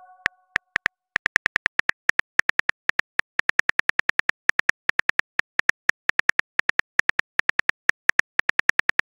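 Simulated phone-keyboard typing clicks from a texting-story app: a long run of short, identical clicks at about six a second, with brief gaps.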